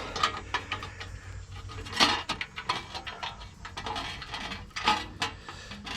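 Small metallic clicks and taps of a bolt and a sheet-metal turbo heat shield being handled and threaded in by hand, with a sharper clink about two seconds in and another near the five-second mark.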